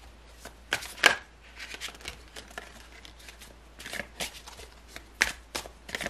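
Deck of tarot cards being shuffled by hand: an irregular run of light flicks and snaps of card against card, the sharpest about a second in.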